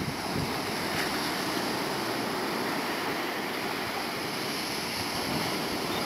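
Ocean surf breaking and washing up a sand beach: a steady rushing hiss of foaming water.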